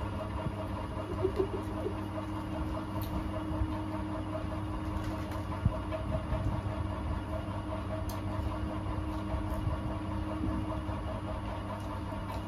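A steady low machine hum, like a running motor, with a few faint clicks.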